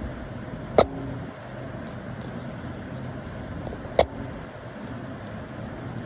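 Steady hum of distant urban traffic, broken by two sharp knocks about three seconds apart, each followed by a brief low ring.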